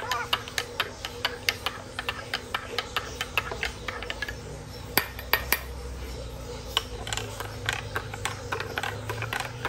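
Metal teaspoon stirring drinks in glass cups, clinking against the glass in quick, irregular taps, about two or three a second.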